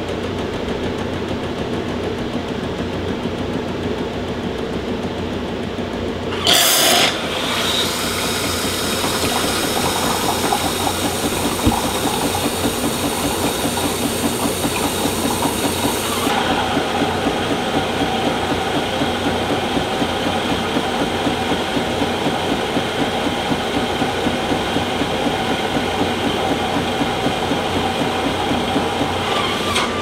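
Miele 6310/6350 bean-to-cup espresso machine making a macchiato. It runs with a steady mechanical hum, then about six seconds in there is a short loud burst of steam. Hissing and a rapid, even pump pulsing follow as frothed milk pours into the glass, and about sixteen seconds in the hiss stops while the pulsing and a steady hum carry on.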